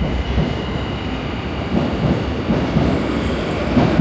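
Electric commuter train running on the rails: a steady rumble with a faint high whine, and irregular low knocks from about halfway through, the loudest just before the end.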